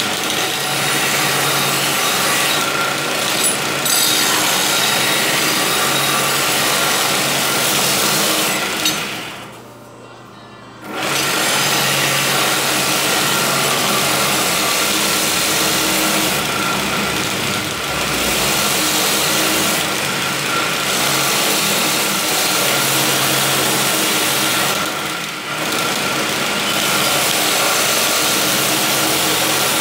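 Homemade belt sander driven by a sewing-machine motor, running with a blade held against the abrasive belt for grinding. The motor cuts out for about a second and a half at roughly a third of the way in, then starts up again and runs on.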